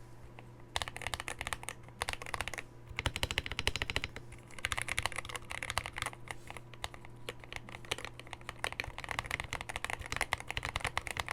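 Typing on a MageGee Sky61 mechanical keyboard fitted with thicker keycaps: rapid, continuous keystrokes starting about a second in, with a couple of brief pauses.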